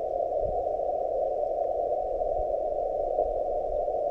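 Steady receiver hiss from a Yaesu FTX-1F transceiver's speaker on the 20 m CW band, squeezed into a narrow CW filter passband so it sounds like a muffled, even rush. No Morse signal can be heard in it.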